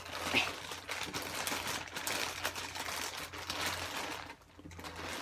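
Crinkling and rustling handling noise, close and irregular, with small scattered clicks.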